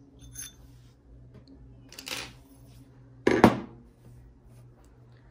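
Small metal objects being handled on a tabletop: a short rustle about two seconds in, then a sharp metallic clatter a second later, the loudest sound, as the metal ring-sizing mandrel with its ring is set down.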